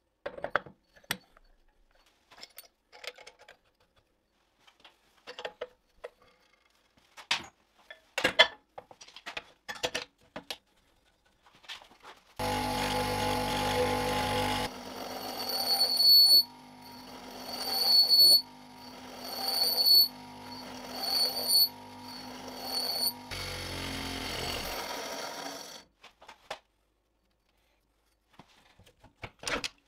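Short metal clicks and knocks as parts are fitted onto a bench grinder's threaded spindle. About twelve seconds in, a power tool starts running: first steadily, then in a string of surges about every second and a half that each grow louder with a high ringing, then steadily again until it stops near the end.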